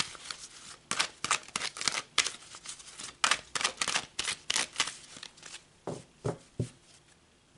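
A deck of cards being shuffled by hand, a quick run of papery card flicks and slaps several times a second, then three duller knocks about six seconds in.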